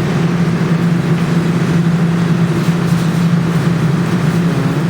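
A steady low mechanical hum from a claw machine while a claw game is being played. It stays loud and unchanging throughout.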